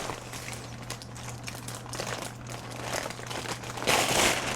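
Bag crinkling and rustling as hands rummage inside it to pull out wool, growing louder briefly near the end.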